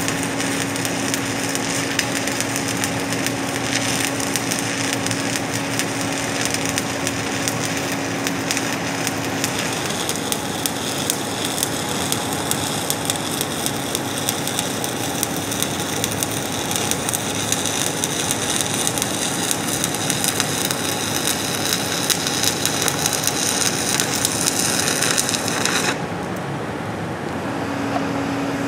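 Shielded metal arc (stick) welding on steel pipe: the arc of a 7018 electrode crackles and sizzles steadily through a cover pass, then stops near the end.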